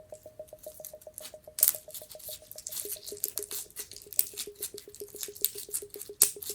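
Premade slime being squished and stretched, making quick, irregular sticky clicks and pops. Under it runs soft background music: a steady pulsing note that steps down in pitch about halfway through.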